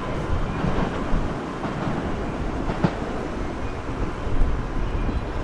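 A train running on the track, with a steady rumble of wheels on rails and one sharp click a little under three seconds in.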